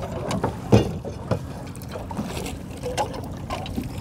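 Boat motor idling with a steady low hum, with one sharp knock on the boat about three quarters of a second in and a few lighter knocks after it.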